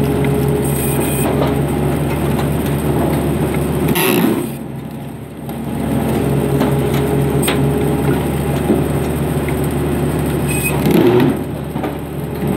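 Vertical band saw cutting firewood logs, its steady machine hum running throughout. Brief cracks of wood come about four seconds in and again near eleven seconds, each followed by a short dip in the hum.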